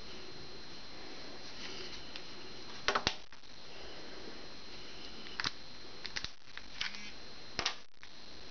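Sharp plastic clicks and taps as a hard plastic phone case and an iPhone 4 are handled: a quick double click about three seconds in, then several more single clicks over the next few seconds. Under them runs a steady hiss with a thin high tone.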